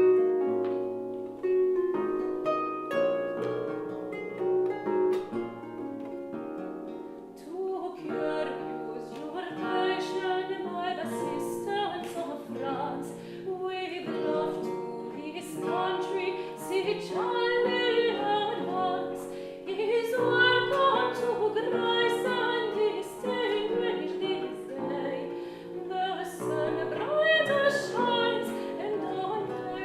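A baroque chamber ensemble playing a Scottish air: plucked Celtic harp chords lead at first, and from about eight seconds in a woman's voice sings over the harp and strings with vibrato.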